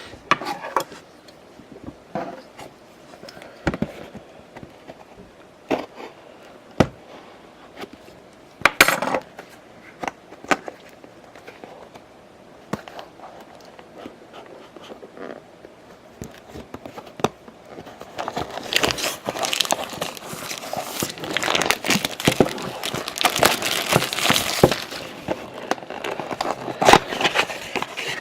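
Scattered light taps and clicks of a cardboard box and cards being handled, then, about eighteen seconds in, several seconds of dense crinkling and tearing of plastic wrapping as the blaster box's card packs are opened.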